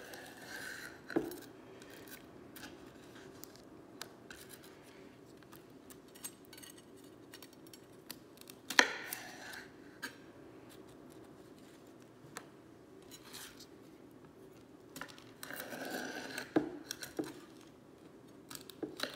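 A large kitchen knife cutting and scraping aloe vera leaves on a cutting board, removing the spines: scattered slicing and scraping with sharp taps of the blade on the board. The loudest is a single knock about nine seconds in, and there is a busier run of scraping and taps near the end.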